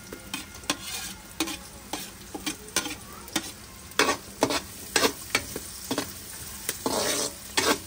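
Metal spatula scraping and clicking against a wok, irregularly, as chopped onion and ginger are stirred into sautéing garlic, over a low sizzle of frying.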